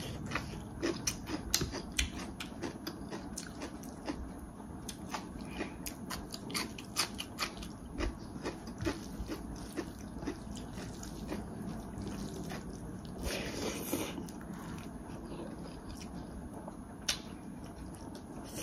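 A person chewing and eating rice with fried pork close to the microphone: many small, irregular mouth clicks and crunches, with a brief hissing rustle about 13 seconds in.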